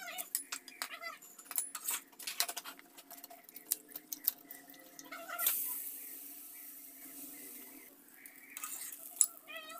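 Utensils clatter and tap; about halfway a soaked roti laid on a hot iron tawa starts sizzling with a sudden hiss that fades over a couple of seconds. Short domestic animal calls recur, and there is a sharp knock near the end.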